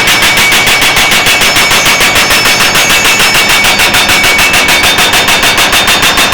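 Furukawa FXJ175 hydraulic breaker hammering continuously, a rapid, even train of loud percussive blows from the excavator-mounted attachment running under hydraulic power.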